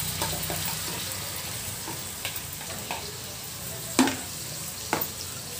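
Marinated chicken sizzling as it is spooned into a pan of fried onions, with a steady frying hiss and light scraping. A spoon knocks sharply twice, about four and five seconds in.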